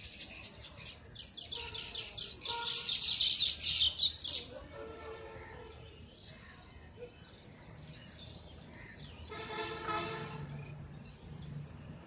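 Weaver birds at their colony's hanging nests, chattering in a fast, buzzy burst through the first four seconds. Quieter calls follow, and a shorter, lower call comes about ten seconds in.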